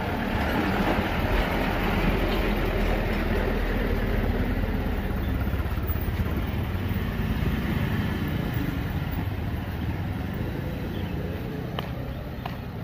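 Steady engine rumble of a nearby vehicle, with a hiss of noise over it, easing off slightly near the end.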